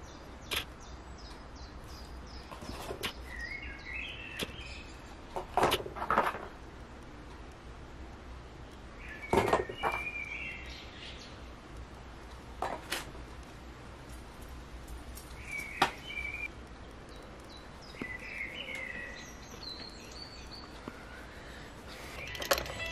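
Faint, short, wavering high chirps every few seconds from an animal, with scattered sharp knocks and clicks in between.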